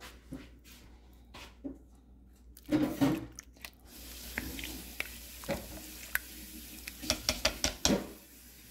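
A spoon stirring through a pot of cooking pinto beans, scraping and clicking against the pot, with a denser run of clicks near the end. A steady faint hiss sets in about four seconds in.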